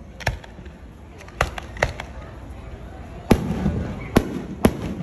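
Aerial firework shells bursting overhead: about six sharp bangs at uneven intervals, the louder ones in the second half.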